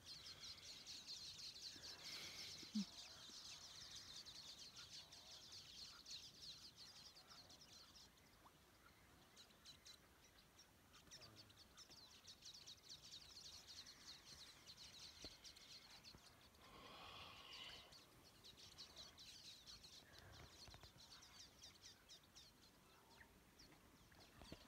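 Faint outdoor ambience of steady, rapid high-pitched chirping from small animals, with one brief low sound about three seconds in.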